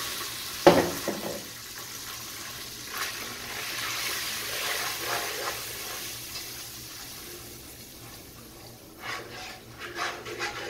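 Semolina sizzling as it fries in hot ghee in a non-stick pot, stirred with a wooden spatula. A sharp knock about a second in is the loudest sound, and a few scraping stirs come near the end.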